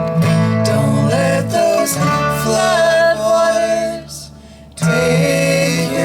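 Folk band playing live: acoustic guitar with held, sung notes. The music drops away briefly about four seconds in, then picks up again.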